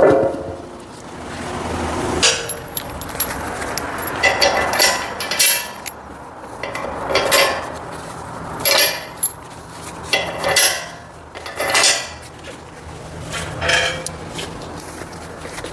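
Steel parts and tools knocking and clinking together in irregular clanks, some ringing briefly, as a hydraulic cylinder and its mounting bolts are fitted to a steel frame.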